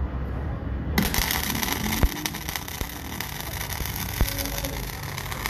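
MIG welding arc crackling steadily as it lays weld on a steel shaft, with a low steady hum underneath and a couple of sharper pops.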